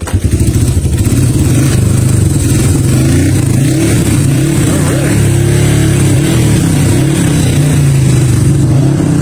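A 1976 Yamaha XS360's parallel-twin engine catches suddenly and keeps running on full choke, its speed wavering up and down.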